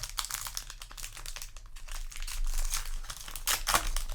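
Foil booster-pack wrapper crinkling as it is handled and torn open by hand, with a louder crackle near the end.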